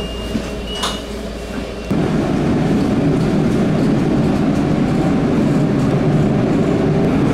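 Interior of an Alicante tram (metro) car: over a low hum, a high electronic tone sounds in two stretches, then about two seconds in a loud, steady running rumble of the moving train takes over abruptly.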